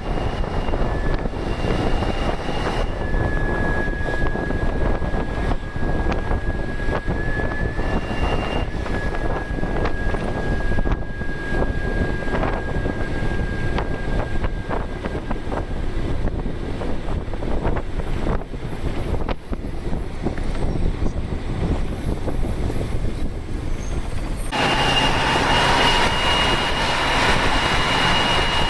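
Ashok Leyland bus's turbocharged diesel engine running under load on a climb, with a steady high turbo whistle over the engine that sinks slightly and fades out about sixteen seconds in. About four seconds from the end the sound turns suddenly louder and brighter, with a higher, steady whine.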